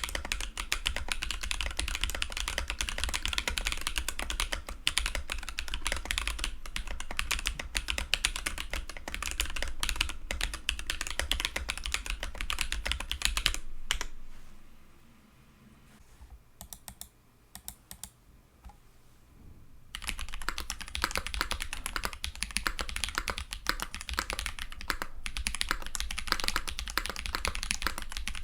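Fast typing on custom mechanical keyboards with tactile Holy Panda-type switches. First comes a Switch Couture acrylic Alice-layout board with Glorious Panda switches. A few seconds past the middle the typing stops for a stretch of quiet with a few stray clicks, then resumes on a Polaris board with Drop Holy Panda switches.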